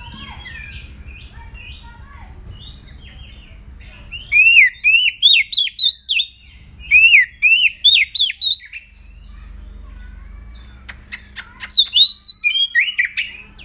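An oriental magpie-robin sings fiercely in bursts: loud runs of quick, sweeping whistled notes that rise and fall, after softer scratchy notes at first. A quick run of sharp clicks comes just before the last burst.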